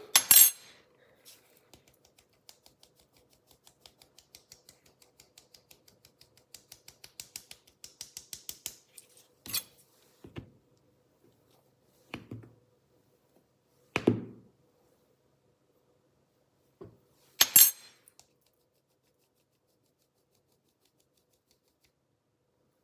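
Plastic mesh sieve of flour being tapped over a stainless-steel mixing bowl: a quick run of light taps, about three a second, growing louder, then a few separate sharper knocks.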